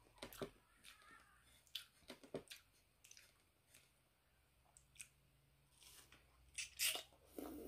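Faint mouth sounds of someone eating mango slices: scattered crisp clicks and short crackly bites as the fruit is chewed, loudest just before the end.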